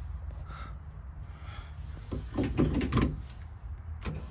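Knocks and clicks from switching on a car's kill switch and ignition: a cluster of clunks about two and a half seconds in, then a single sharp click near the end.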